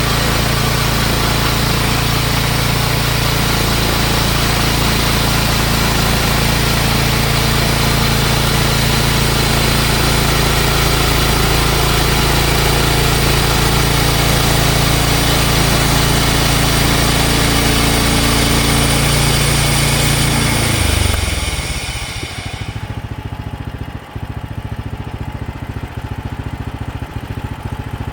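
Gas engine of a Mechmaxx portable bandsaw sawmill running steadily at high speed under a loud hiss. About three-quarters of the way through it drops back to a slower, pulsing idle and the hiss stops.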